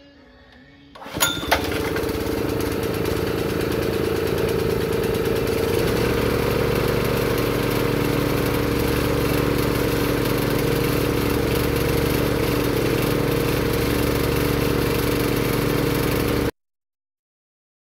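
Rol-Air wheelbarrow air compressor's Honda GX160 single-cylinder gas engine pull-started and catching about a second in, then running steadily on a test run after its maintenance. A slow, low pulsing joins about six seconds in, and the sound cuts off suddenly near the end.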